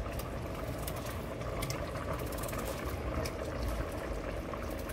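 A pot of brown stew goat simmering with a steady bubbling, with a few light clicks scattered through it.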